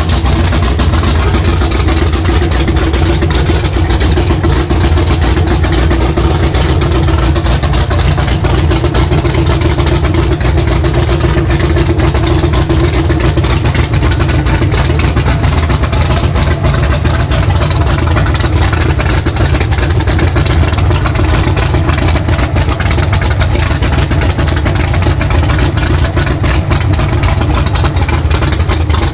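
Supercharged V8 of a ZL1 Camaro with a big custom-grind race cam, idling loud and steady with a choppy cam idle, just after its first start on a fresh build.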